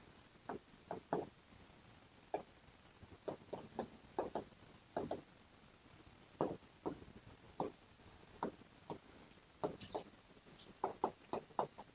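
Irregular light taps and knocks of someone writing on a board, single strokes and short quick clusters.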